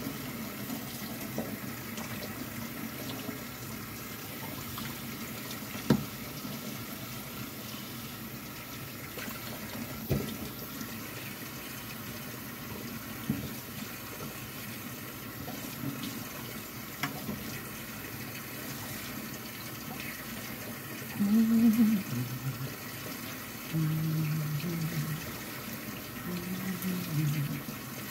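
Kitchen faucet running steadily into a sink, the water splashing through a fine mesh strainer as cantaloupe seeds are rinsed free of pulp, with a few sharp clicks. In the last few seconds a low voice hums several held notes over the water.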